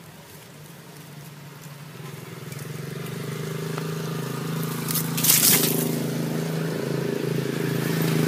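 A motor engine running at a steady pitch, growing louder over several seconds and then holding. A brief, loud crackling rustle comes about five seconds in.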